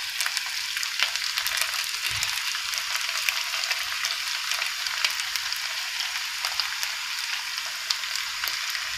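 Marinated, flour-coated chicken pieces frying in hot sunflower oil: a steady sizzle with many small crackles and pops.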